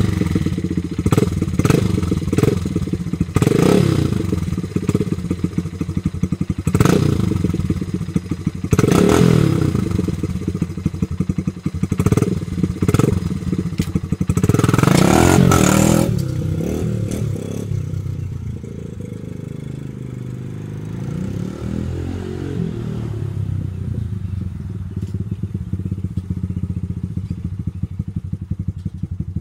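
Dirt bike engine running with repeated throttle blips, then revving up loudly about fifteen seconds in as the bike pulls away. After that the engine is quieter and its pitch rises and falls as it rides off.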